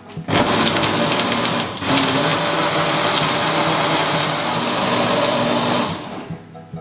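Electric countertop blender running at full speed, churning a thick smoothie. It starts just after the beginning, dips briefly about two seconds in, and cuts off about six seconds in.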